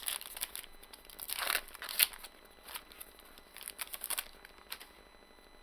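Foil wrapper of a Magic: The Gathering booster pack being torn open and crinkled by hand: irregular crackling rustles that die away near the end.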